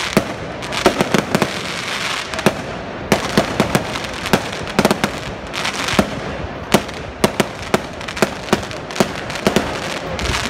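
Aerial fireworks shells bursting in quick, irregular bangs, several a second, over a continuous crackle from the glittering stars.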